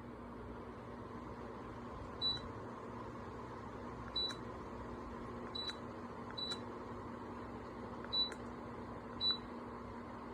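Dreo tower fan running with a steady hum and airflow, with six short high electronic beeps, each with a click, at irregular intervals.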